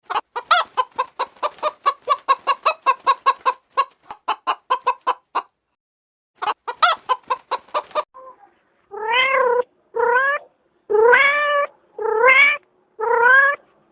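A fast run of short clucking calls, about six a second, then a cat meowing five times, each meow long and rising then falling in pitch.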